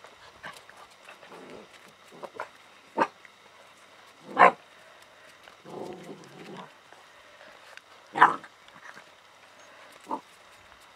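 Alaskan malamute puppies giving short play barks and yaps, one at a time every second or two, the loudest about eight seconds in, with a longer, lower rough sound around the middle.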